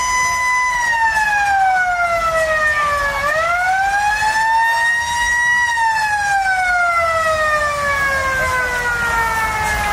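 A siren holding a steady high tone, then winding down in pitch, rising back up about three seconds in, and winding down again slowly.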